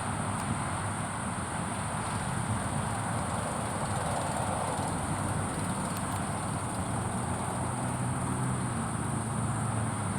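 Steady outdoor background: a continuous low vehicle rumble with an unbroken high-pitched insect drone over it.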